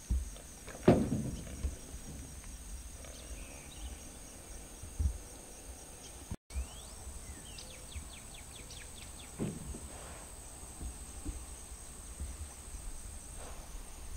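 Steady high drone of insects, broken by a few dull knocks, the loudest about a second in, from the wooden oar striking the aluminium jon boat.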